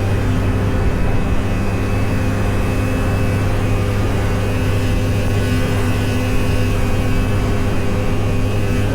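1997 Yamaha V-Max 500 snowmobile's two-stroke engine running at a steady speed under way, with an even drone and no revving.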